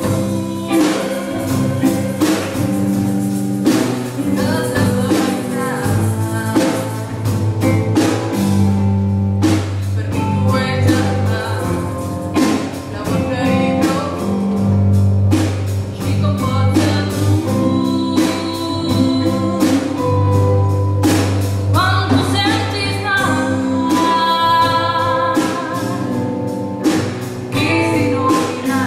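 A song sung with a band of electric guitars, bass and a drum kit, the drums keeping a steady beat under the vocal line.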